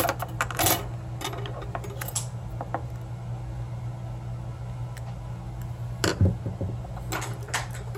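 Small metal clicks and clinks from a picked-open American 1100 padlock being handled and taken apart, in two clusters: one in the first couple of seconds and one about six seconds in. A steady low hum runs underneath.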